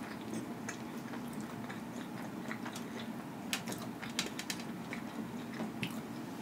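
Close-miked eating sounds: chewing, with sharp clicks of a metal spoon scooping coleslaw from a plastic cup, coming thickest between about three and a half and four and a half seconds in.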